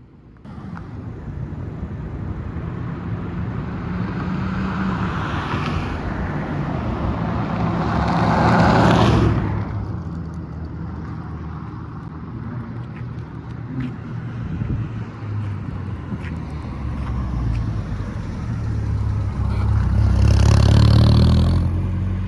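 Car engines running, swelling louder twice: once about eight seconds in and again near the end, as a car passes or revs.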